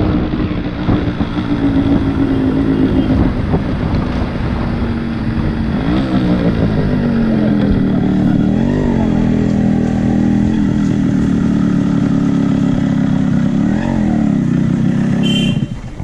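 Yamaha RX100's single-cylinder two-stroke engine running under way. Its pitch dips and climbs back a few times as the throttle is eased and reopened, and the engine sound falls away near the end.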